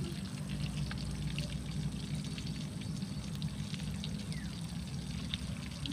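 Fish frying in oil in a wok over a wood fire: a steady noise with scattered small pops.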